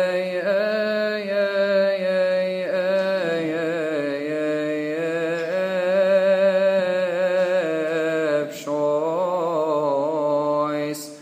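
A male cantor chanting a Coptic psalm solo, drawing out long vowels with wavering, ornamented pitch. The line breaks briefly about eight and a half seconds in and dies away at the end.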